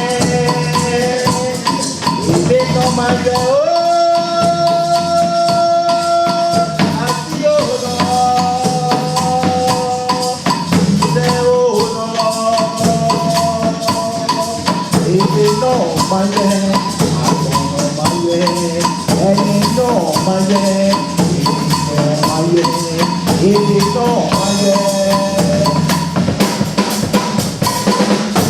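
Music with a busy percussion rhythm, tambourine and shakers over a sustained melody.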